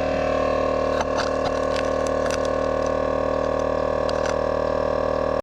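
Air Armor 12-volt all-metal tire inflator compressor running steadily while inflating a tire, with a few light ticks in the middle.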